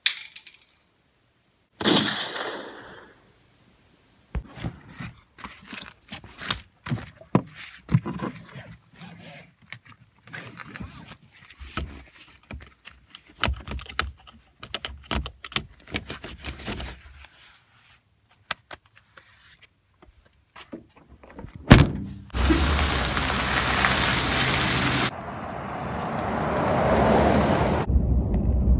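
A sharp bang at the start, then a long run of irregular knocks and rustles, a single loud thud a little past the middle, and after it the steady noise of a car driving.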